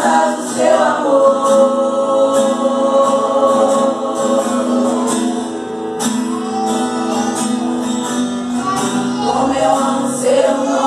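Women singing a gospel worship song together into microphones, amplified through a PA speaker, with an acoustic guitar strummed underneath. The voices hold long notes.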